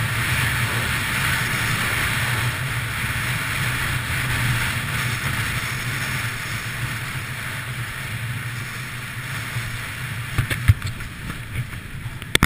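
Wind rushing over an action camera's microphone with skis sliding on groomed snow during a downhill run, easing off over the last few seconds as the skier slows. A few sharp knocks near the end.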